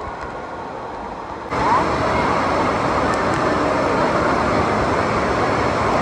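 Steady hubbub of a crowded indoor water park: many voices and moving water blending into one even din, which jumps abruptly louder about a second and a half in.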